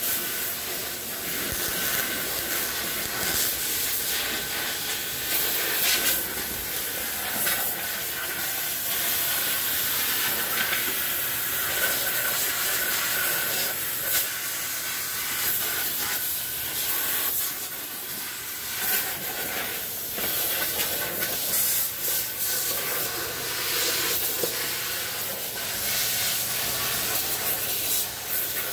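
MIG welder crackling and hissing in short runs that start and stop as repair metal is welded into a rusted wheel-well panel. A steady low hum joins about two-thirds of the way in.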